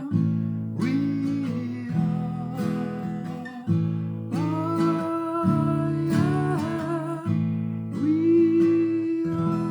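Acoustic guitar strummed in chords, a stroke about every second, with a wordless held melody line over them in the closing bars of a song.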